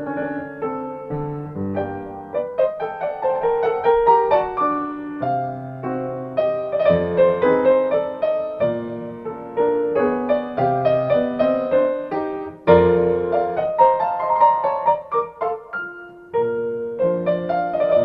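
Solo piano music, a gentle classical piece played as background music.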